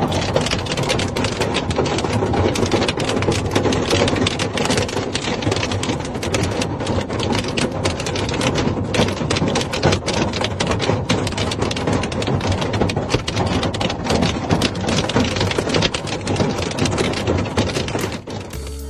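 Large hailstones pelting a van's roof and cracked windscreen, a loud, dense, continuous clatter of impacts heard from inside the cab. It eases slightly near the end.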